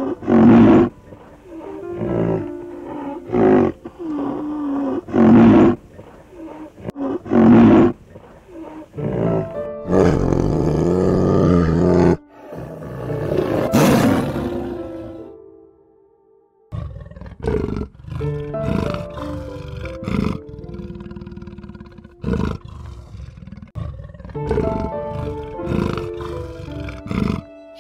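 Short loud animal calls repeated every second or two, then a tiger roaring and growling for several seconds, over gentle background music that carries on with fainter calls near the end.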